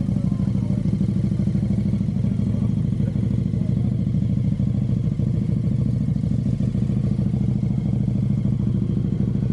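An engine running steadily at a constant low speed, an even low drone with a fast regular pulse.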